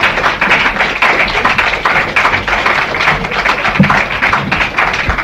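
Audience applauding: a dense, continuous clatter of many hands clapping.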